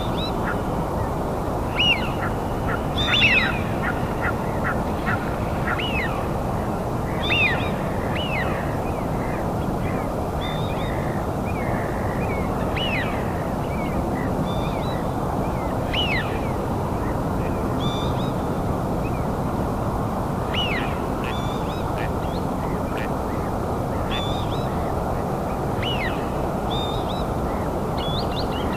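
Birds calling: many short notes, each falling quickly in pitch, scattered irregularly and loudest in the first few seconds, over a steady even background noise.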